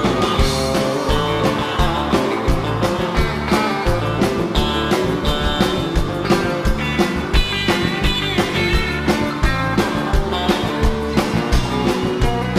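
A live country band plays with a steady drum beat and bass, led by a Telecaster electric guitar picking a twangy, hybrid-picked chicken-pickin' lead line.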